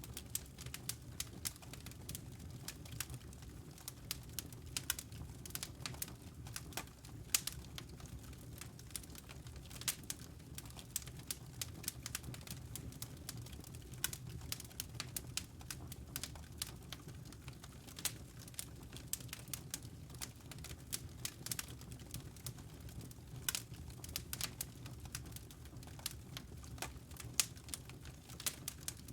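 Wood fire crackling and popping: irregular sharp snaps, several a second, over a steady low rumble of the burning fire.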